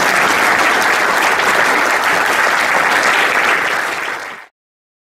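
A hall audience applauding steadily, a dense patter of many hands clapping, which fades and breaks off into silence about four and a half seconds in.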